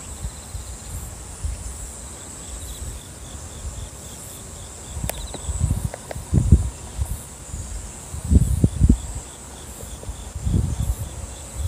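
Insects chirring in a continuous high buzz, with a faster pulsing call beneath it. Several low rumbling bursts on the microphone come in the second half and are the loudest sound.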